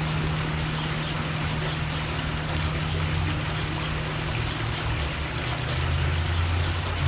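Steady low mechanical hum over an even hiss, with no bird calls standing out; the low drone shifts and grows a little louder near the end.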